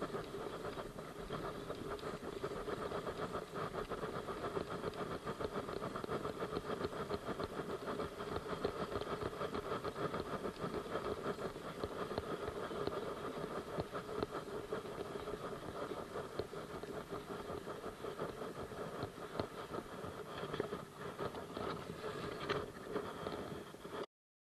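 Spinning reel cranked hard and fast against a hooked young yellowtail, a steady whirring grind of the reel's gears. It cuts off abruptly near the end.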